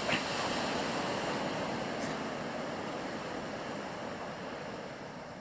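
Sea waves washing on a rocky shore: a steady rushing noise that swells near the start and then slowly fades.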